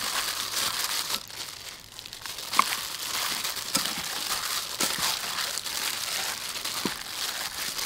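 Thin plastic food-prep glove crinkling and rustling as a hand mixes raw fish pieces with ginger and seasoning in a ceramic bowl, with a few light clicks.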